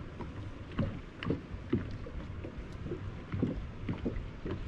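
Small waves lapping and slapping against the hull of a bass boat in irregular short splashes, over a low steady hum.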